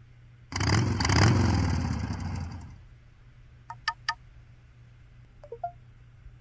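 LG KU9600 Cyon mobile phone system sound effect: a loud synthesized whooshing swell with swooping low tones that fades out after about two seconds, followed by three short quick blips and a faint chirp.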